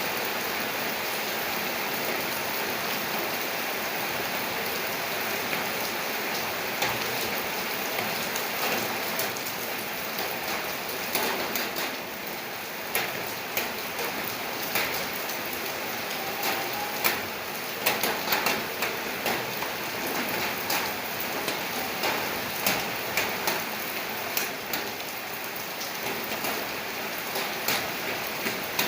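Steady rain falling, a constant hiss with individual drops tapping sharply on a surface, the drips coming thicker in the second half.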